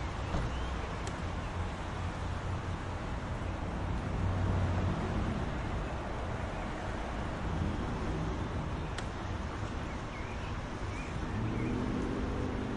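Steady soft rain hiss over a low rumble, with a few faint chirps partway through and a low droning hum that comes in near the end.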